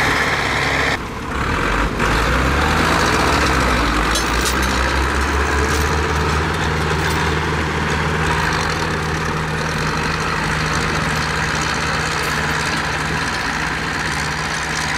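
Zetor tractor diesel engines running, mostly steady at idle, with a short dip about a second in.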